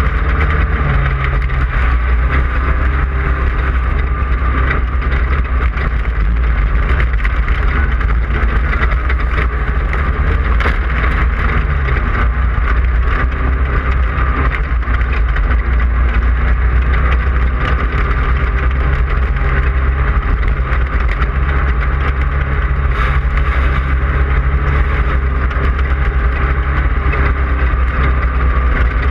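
Class 5/1600 race car's 1600cc air-cooled Volkswagen flat-four engine running steadily at speed, with a constant heavy low rumble.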